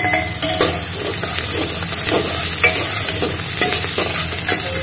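Onions and whole spices sizzling in hot oil in an aluminium pot while being stirred with a slotted ladle, which scrapes and knocks against the pot at irregular moments about twice a second.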